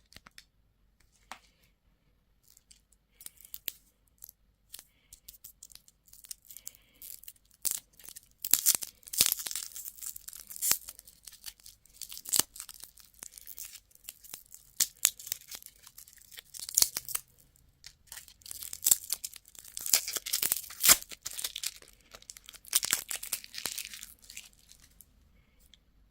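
Candy wrapper being torn open and crinkled close to the microphone: a long run of crackles and snaps, heaviest through the middle and later part.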